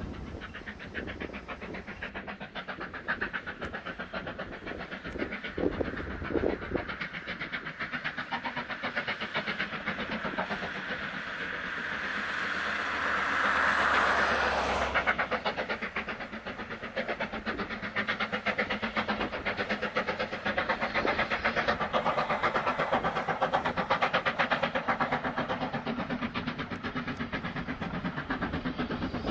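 Steam locomotive hauling a passenger train, chuffing in a steady rhythm with hissing steam. A louder hiss swells in the middle and cuts off suddenly.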